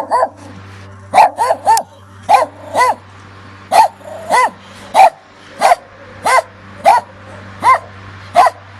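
A dog barking repeatedly in short, fairly high-pitched barks, about one or two a second, some in quick doubles and triples.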